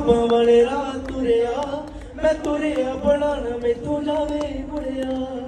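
A man singing a slow melody into a handheld microphone, with long held notes that bend in pitch.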